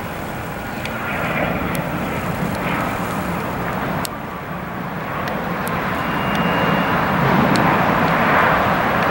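Twin turbofan jet engines of a Cessna Citation Excel/XLS business jet running as it rolls along the runway after landing: a steady jet roar that grows louder over the last few seconds.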